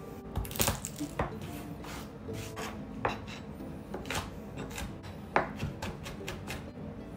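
Chef's knife chopping garlic cloves on a plastic cutting board: scattered sharp knocks of the blade on the board, then a quicker run of light chops in the second half.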